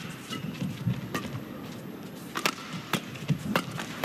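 Badminton rally: rackets strike a feather shuttlecock with about five sharp cracks, spaced roughly half a second to a second apart. Players' feet thud on the court underneath.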